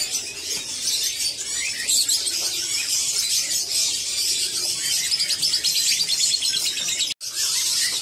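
A chorus of caged songbirds chirping and singing at once, with a fast high trill of rapidly repeated notes in the middle. The sound breaks off for an instant near the end.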